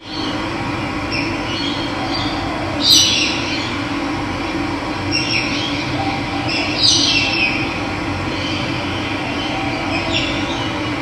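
Running water rushing steadily, with birds calling over it: a few short chirps, then several quick downward-sweeping calls, the loudest about three seconds in and again about seven seconds in.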